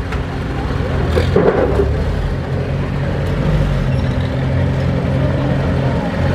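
Oliver 66 tractor's engine running steadily as the tractor rolls down off a teeter ramp and pulls away. A brief clatter sounds about a second in.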